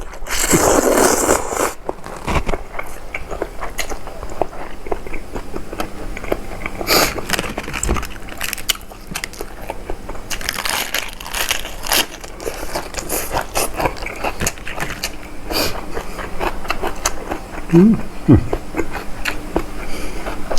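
A person eating spicy seafood papaya salad, with crunchy bites and chewing full of small clicks and smacks.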